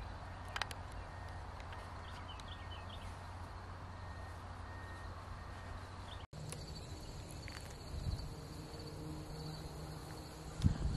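Morning field ambience: insects chirping steadily over a low hum, with a few faint chirps about two seconds in. The background changes abruptly about six seconds in to a higher, steady insect tone.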